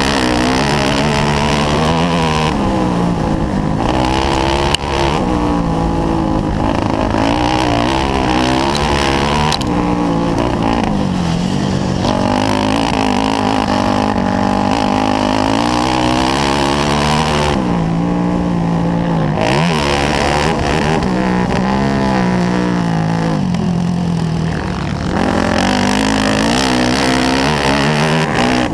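Yamaha YZ400F four-stroke single-cylinder engine at racing speed, heard close from a camera on the bike. It revs up and drops back over and over as the rider shifts and shuts off for the corners. There is a sharp knock about five seconds in.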